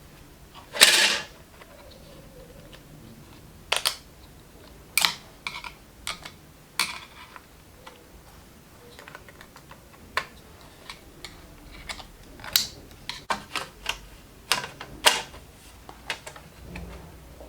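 Irregular clicks and taps of hard plastic and small metal parts being handled, with a louder scraping rustle about a second in.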